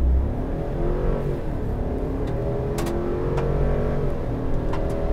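Chevrolet 6.2-liter V8 at full throttle, accelerating hard from a standstill, heard from inside the truck's cab. The engine note climbs in pitch and drops back several times as the 10-speed automatic upshifts.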